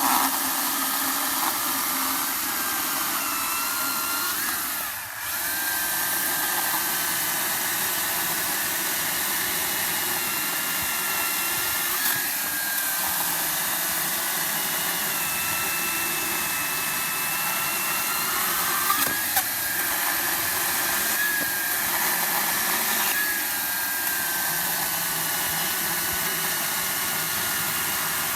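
Makita XCU08 36-volt battery top-handle chainsaw with a 14-inch bar cutting through bitternut hickory, a hard wood: a steady electric motor whine whose pitch sags and recovers as the chain loads up in the cut, with a brief let-off about five seconds in.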